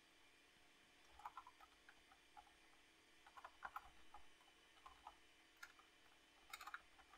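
Faint keystrokes on a computer keyboard, typed in short runs of clicks with pauses between.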